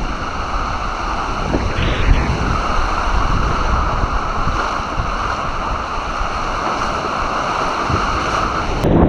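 Steady rushing noise of wind and waves, with wind buffeting the microphone. Just before the end it changes abruptly to a louder rushing sound.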